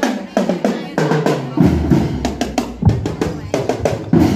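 Children's marching drum band playing: quick, sharp strokes on marching drums, with a heavy bass drum hit about every second and a quarter.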